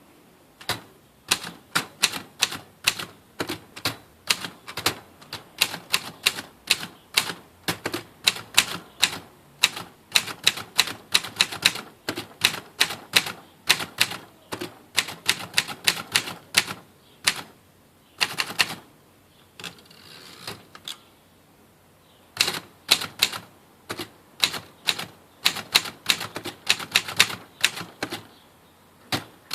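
Early Alpina manual typewriter (1951-52 model) being typed on: a steady run of sharp keystrokes, about three to four a second, with a short break about two-thirds through before the typing picks up again.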